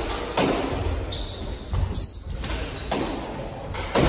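Squash doubles rally: a few sharp smacks of the ball off racquets and the court walls, ringing in the hall, with a brief high-pitched sneaker squeak on the wooden floor about two seconds in.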